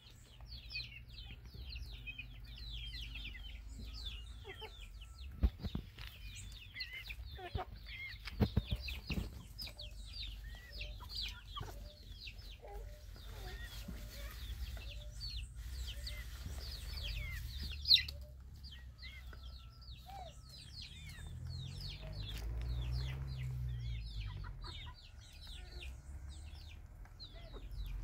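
A flock of young chickens and chicks peeping constantly, with many short, shrill, falling cheeps and a few lower clucks as they forage. A low rumble runs underneath, with a few sharp knocks.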